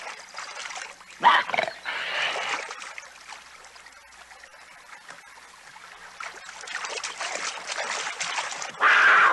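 Water splashing and trickling as animals wade through a shallow river. Short, harsh animal snarls come about a second in and again near the end.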